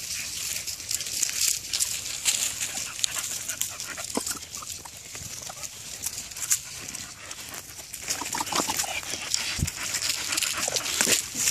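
Dry fallen leaves and grass crunching and crackling under footsteps and running dogs, a continuous rustle of small crackles. A few short dog whines come in, the clearest about four seconds in and again near eight to nine seconds.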